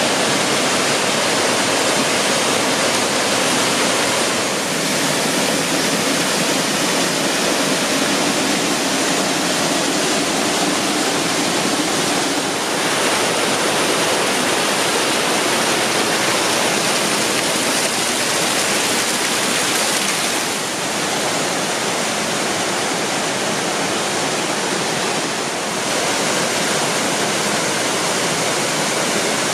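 Waterfalls and cascades of a mountain stream, water rushing and splashing over granite rocks in a steady, loud roar. The tone and level shift slightly a few times as it moves from one stretch of falling water to the next.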